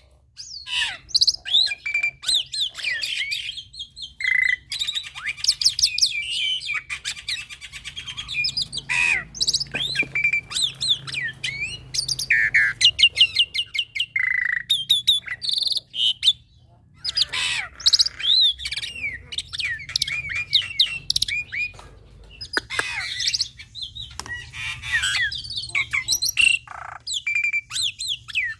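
Young black-winged myna (jalak putih) singing a long, varied song of sliding whistles, chirps, quick rattling trills and harsh squawks, full of mimicked phrases ('isian').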